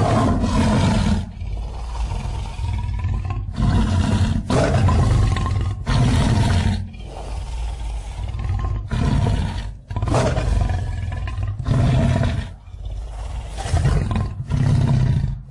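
Lion growling while it eats, a run of deep growls each about a second long with short breaks between them.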